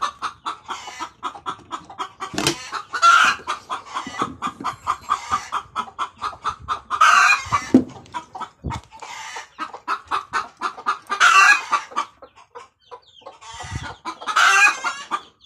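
Disturbed chickens clucking in a rapid, steady run of calls, broken about every four seconds by a louder squawking cackle: alarm at being disturbed.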